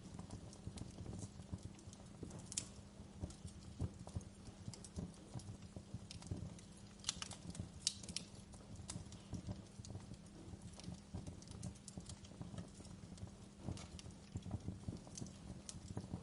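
Wood fire crackling in a fireplace: constant irregular pops and snaps over a low rumble, with a few louder pops scattered through.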